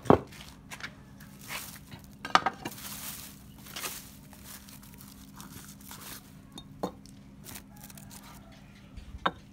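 A cover being pulled off a worm bed: crinkling and rustling, with a few sharp knocks and a faint steady hum underneath.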